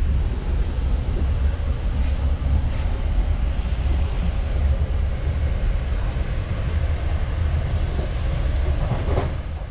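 Cabin noise inside a Hitachi Caravaggio double-deck electric multiple unit running at speed: a steady low rumble of the wheels and running gear on the track.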